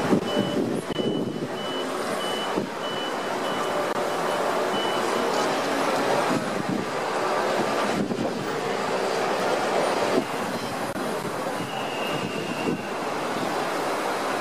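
City street traffic and crowd noise. A high electronic beep repeats about two and a half times a second through the first five seconds or so, then stops.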